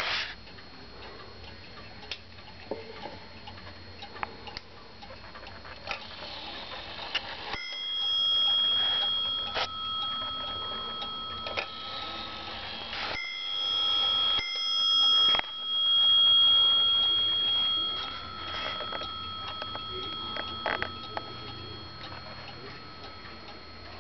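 Warmink Dutch weight-driven wall clock ticking. From about a third of the way in, a ringing with several pitches starts, breaks off and restarts a few times, each ring holding for a few seconds: the clock striking its bell.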